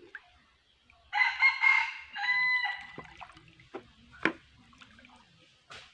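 A rooster crows once, about a second in, a pitched call that drops and then holds briefly before ending. A couple of short sharp knocks follow later.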